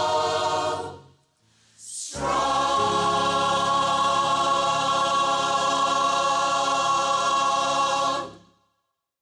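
Community choir singing held chords: one chord breaks off about a second in, then after a short breath a long sustained chord that ends near the end.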